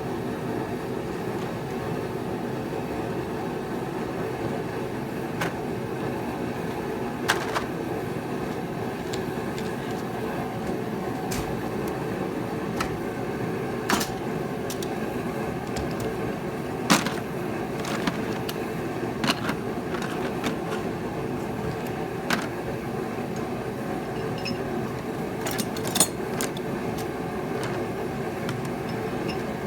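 Steady mechanical hum with a dozen or so sharp, scattered clicks and clinks of metal hand tools being handled.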